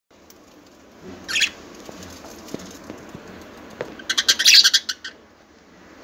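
Budgerigars chirping and chattering: a short burst about a second in, then a louder run of rapid chirps about four seconds in, with a few faint clicks between.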